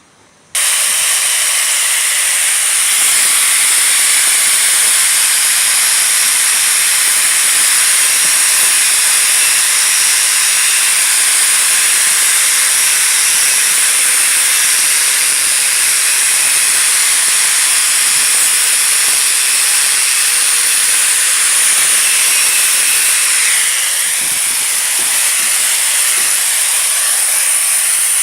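Electric welding on steel: a loud, steady hiss that starts abruptly and holds without a break.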